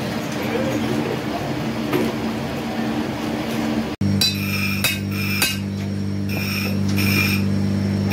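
Steady workshop machine hum; about four seconds in it changes suddenly to a series of sharp metallic clinks that ring briefly, as steel engine parts are struck together, over a steady low hum.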